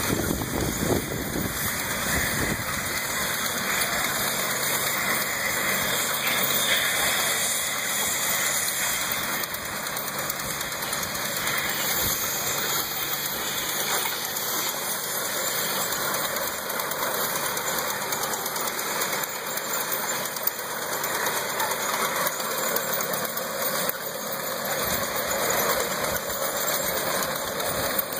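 1922 Cletrac Model F crawler tractor's engine running steadily as the tractor drives along on its tracks.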